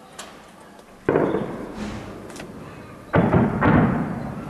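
Shelling explosions: one sudden boom about a second in, then two more in quick succession about three seconds in, each dying away with a long echoing tail.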